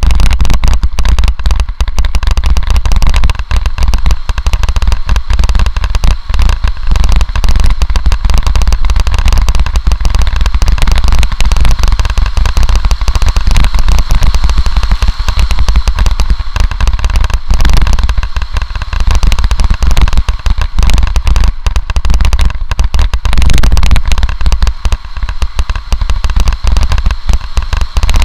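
Mountain bike rattling and clattering over rough forest singletrack on a fast downhill, with dense crackling knocks from the bike and heavy wind rumble on the bike-mounted camera's microphone. The noise is loud and nearly constant.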